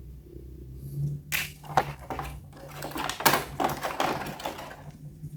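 Rapid clicking and clattering of plastic toy parts being handled, a dense run of sharp clicks starting about a second in and stopping shortly before the end, over a faint low hum.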